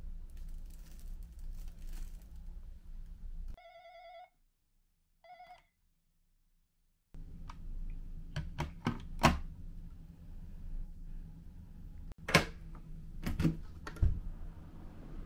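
Faint rustling of a plastic bin liner, then two short electronic ringing tones from a wall intercom handset, with silence around them. Then plastic clicks as the intercom handset is handled, and sharp clicks of a metal lever door handle and latch as the door opens.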